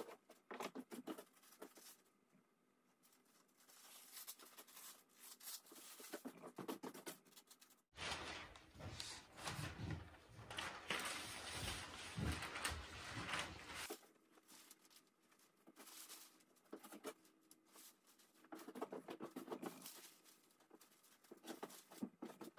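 A large sheet of thin bamboo paper rustling and crackling in short, scattered bursts of handling noise as it is lifted, swung over a wooden lattice window frame and smoothed flat. The rustling is louder for several seconds in the middle.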